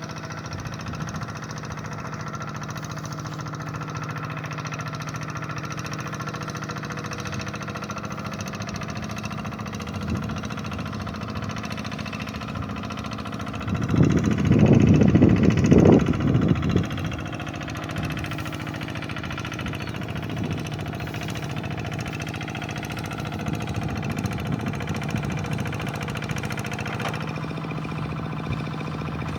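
Engine of a two-wheel hand tractor running steadily while it plows a rice paddy. There is a louder, rougher stretch of about three seconds a little before the middle.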